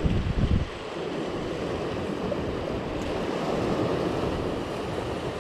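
Sea surf washing over shore rocks, a steady rush, with a brief low rumble of wind on the microphone at the start.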